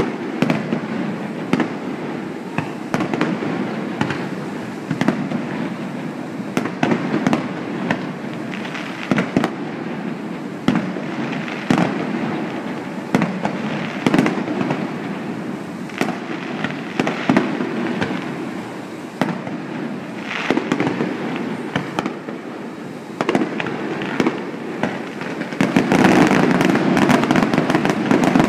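Fireworks display: shells bursting in a run of sharp bangs, sometimes several in quick succession, over a steady background noise. The bangs grow louder and denser near the end.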